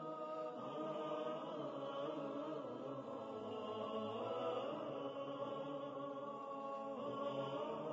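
Background vocal music: a choir of voices singing long, held, chant-like notes in harmony.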